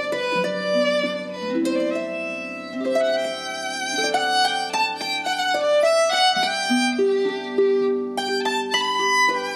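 Harp and violin playing a duet: plucked harp notes under a bowed violin melody of held notes with vibrato.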